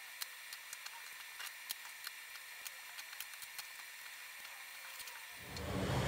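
Bar clamps being taken off a glue-up and set down on a board, giving a string of light clicks and clacks. Near the end a loud, low, steady rumble comes in.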